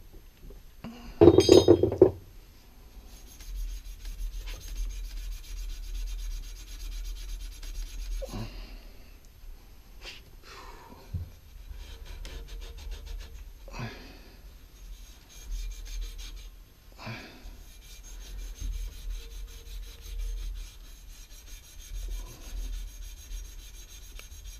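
Hand-tool scraping and rasping on the pipework, in long stretches of fast, even strokes, after one loud knock about a second in.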